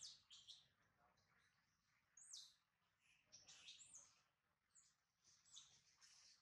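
Newborn pig-tailed macaque crying: a faint run of short, high squeaky calls, several sliding down in pitch, about two a second.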